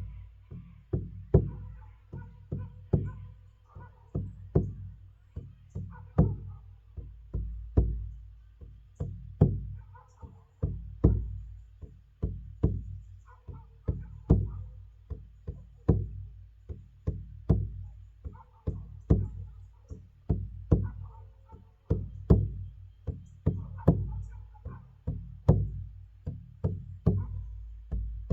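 Bodhrán, an Irish frame drum, struck with a beater in a steady, even medicine-drum beat of about two deep booming strikes a second.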